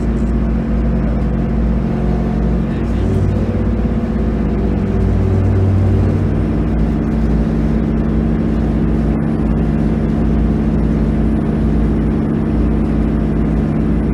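Running sound inside a GV-E400 series diesel-electric railcar: the diesel engine and drive run with a steady drone. The engine note shifts a few seconds in, then holds steady.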